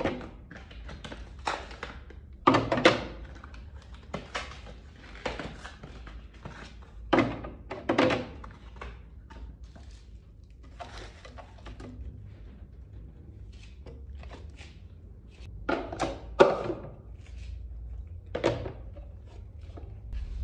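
Irregular knocks and thunks of kitchen work in a small room: utensils and containers being handled and set down, one every second or so, with louder ones around 3 s, 8 s and 16 s in.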